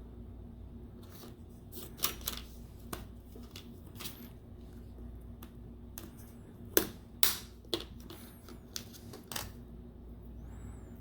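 Scattered small clicks and taps of plastic tablet parts being handled during reassembly, a cluster about two seconds in and the loudest pair around seven seconds, over a steady low hum.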